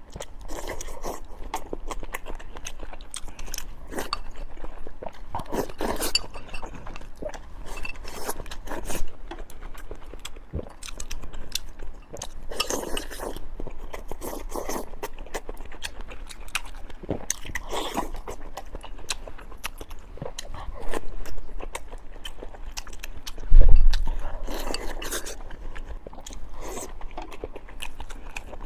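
Close-up eating sounds: a person chewing and biting food, with wet smacks and scattered clicks of utensils against a dish. One loud, dull thump comes about three-quarters of the way through.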